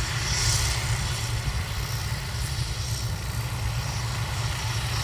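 Helicopter flying overhead, a steady noise of rotor and engine that sits mostly in the low end.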